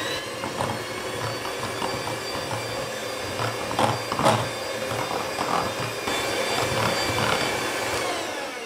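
Electric hand mixer running at steady speed, its beaters whisking an egg into creamed butter and sugar in a glass bowl. There are a couple of sharp knocks about four seconds in, and the motor winds down near the end.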